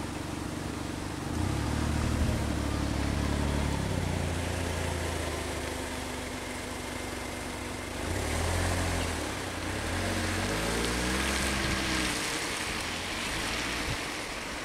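Vehicle engines running, rising and falling in pitch twice as they rev, over a steady hiss of rain that grows louder in the second half.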